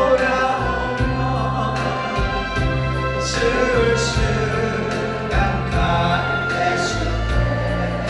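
A Korean ballad sung over a backing track with steady bass notes. A man sings the melody into a microphone, and a group of voices sings along with him.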